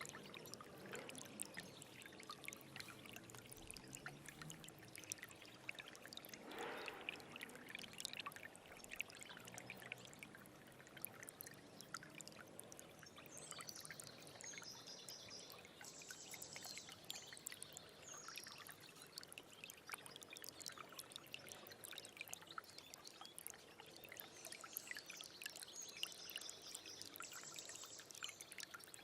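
A small stream running steadily with many small splashes. A bird sings a short repeated phrase twice, about halfway through and again near the end.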